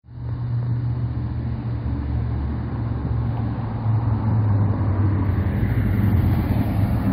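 A motor vehicle's engine running on the street with a steady low hum, over general traffic noise.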